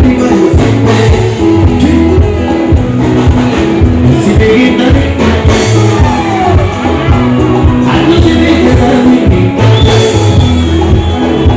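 Live band music played loud through a PA: a strong bass line with guitar and drums, and a singer's voice over it. The sound system is a poor one.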